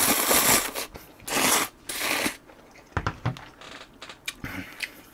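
A person slurping thick Nongshim Neoguri instant ramen noodles in three long noisy pulls over the first couple of seconds, then softer chewing clicks.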